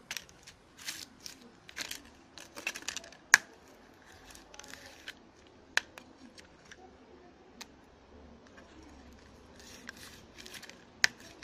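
Heated knife blade scraping and pressing against a Samsung Galaxy S5 smartphone's body, trying to cut through it. Short scrapes come in the first three seconds and a longer rasping stretch near the end, with several sharp clicks scattered between.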